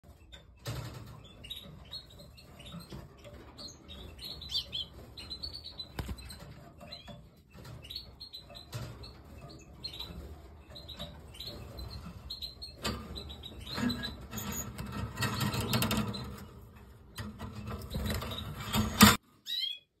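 Canaries chirping and calling with short high chirps throughout. From about two-thirds of the way in, loud rustling and handling noise on the microphone drowns them, cutting off just before the end.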